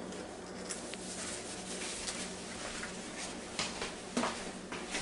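Quiet rustling of shirt fabric rubbing over the camera's microphone as the camera is handled, over a faint steady hum, with a few soft knocks in the second half.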